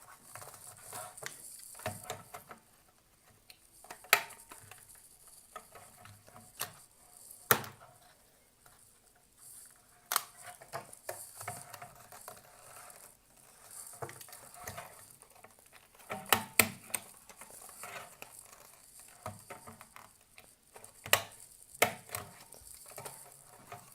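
Paper strips being handled around a hamster's exercise wheel, broken by several sharp clicks of a stapler being pressed closed, two of them close together about two-thirds of the way in.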